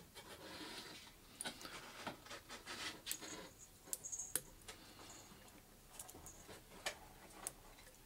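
Lock pick scraping and clicking against the pins inside a Harbor Freight padlock core, with a tension wrench held in the keyway: faint, irregular small clicks and scratches.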